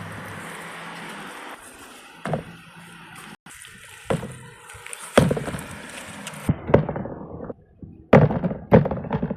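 Picked tomatoes dropping into a harvest bin: a series of dull thumps, several close together near the end.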